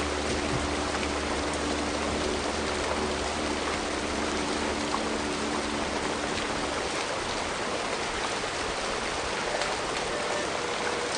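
A stream of water running with a steady, even rush. Faint held low tones underneath fade out about two-thirds of the way through.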